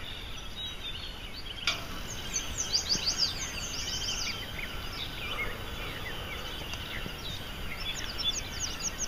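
Several wild birds singing in a morning chorus: quick runs of high, downward-sliding notes, thickest a couple of seconds in and again near the end, over a steady outdoor hiss. A single sharp click about two seconds in.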